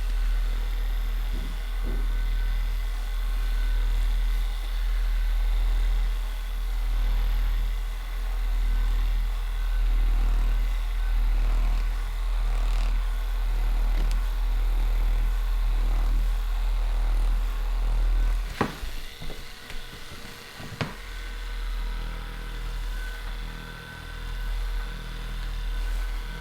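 A small electric motor runs with a steady low buzz. About 18 seconds in it stops for roughly two seconds, with a couple of sharp clicks, then starts again.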